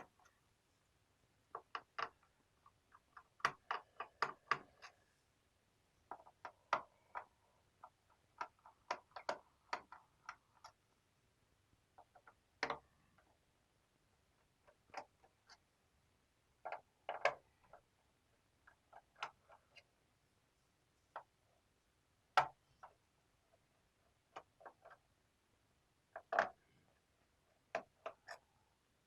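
Faint, irregular clicks and ticks of a screwdriver working the bottom-cover screws of a Lenovo IdeaPad 320 laptop, with small taps as the screws and plastic case are handled.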